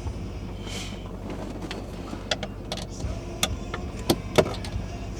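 A series of sharp clicks and knocks, louder near the end, as parts and tools are handled, with a brief hiss about a second in, over a steady low hum.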